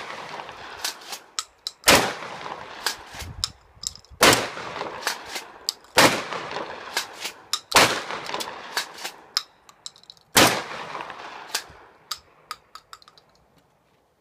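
Hawk 982 pump-action 12-gauge shotgun firing five loud shots about two seconds apart, each ringing out with an echo, with fainter sharp cracks in between.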